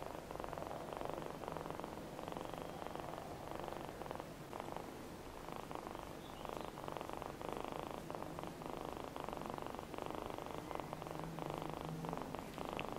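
A young kitten purring steadily, the purr swelling and easing in a slow rhythm.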